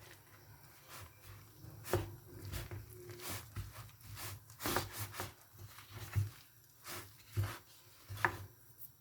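A spoon stirring thick bean-flour moi-moi batter in a bowl, with irregular scrapes and knocks against the bowl.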